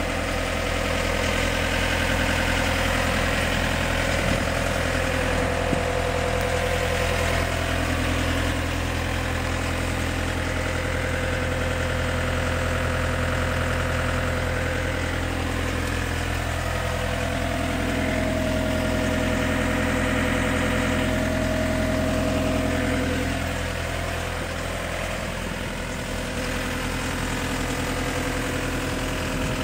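Diesel engine of an IHI CL35 tracked skid steer running at a steady idle, with higher tones above it that shift in pitch for a while in the middle and settle slightly quieter near the end.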